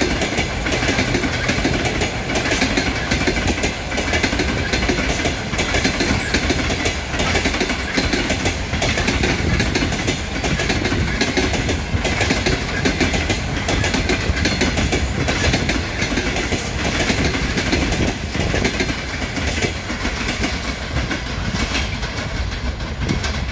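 Passenger train coaches rolling past at speed, their wheels clattering in a steady clickety-clack over the rail joints above a constant rolling rumble. The sound begins to fade as the last coach goes by at the end.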